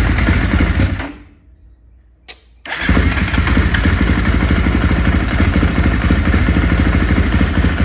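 2018 KTM XC-F 350's single-cylinder four-stroke engine, on its first start after a new fuel pump filter was fitted: it runs briefly and dies about a second in. After a short click it is started again nearly three seconds in, catches and settles into a steady idle.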